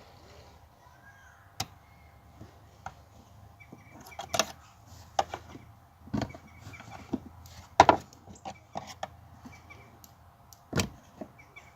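Scattered clicks and knocks of hands and tools working at a car's fuel pump, the loudest about four, eight and eleven seconds in, over a faint steady hum.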